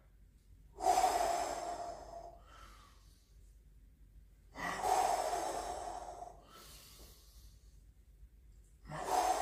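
A man breathing hard with effort: three forceful exhalations through the mouth, about four seconds apart, each starting sharply and tailing off, with a shorter inhale after the first two. This is the breathing that goes with kettlebell curl repetitions.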